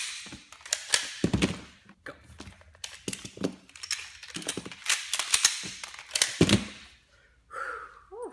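Glock pistols being handled and reassembled by two people at once: a quick, irregular run of sharp metal and polymer clicks and clacks as parts are snapped into place, stopping about seven seconds in.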